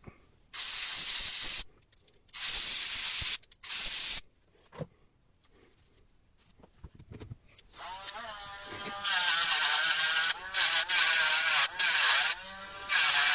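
Aerosol spray hissing in three short bursts, then a small cordless electric screwdriver whirring in short runs with brief pauses as it works a screw in a small metal part of the jigsaw mechanism.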